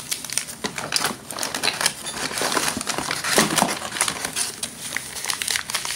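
Brown kraft-paper wrapping crinkling and rustling as a wrapped package is handled and opened, in quick irregular crackles.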